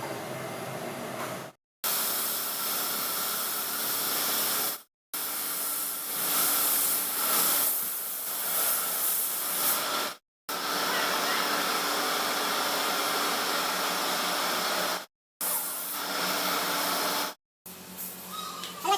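Steady hiss of rushing air, in several short stretches separated by abrupt silent cuts.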